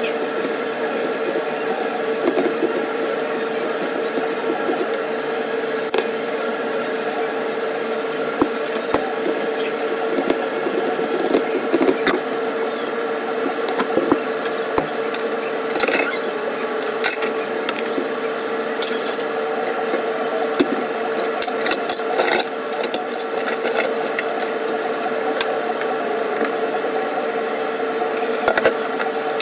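A steady machine hum on one constant pitch, with scattered light clicks and knocks over it.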